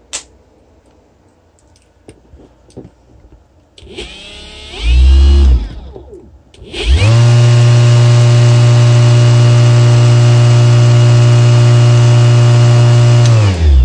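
Electric e-bike hub motor, driven by a sine-wave controller, spinning the wheel in the air with no load. A short burst of throttle spins it up and lets it fall away. Then it runs at a steady, loud whine with several tones for about six seconds and winds down near the end.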